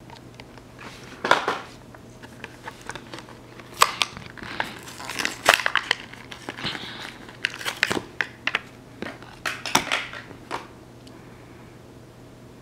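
Clear plastic blister pack and cardboard backing of a Hot Wheels die-cast car crinkling, crackling and clicking as it is torn open by hand, in irregular bursts that stop about two seconds before the end.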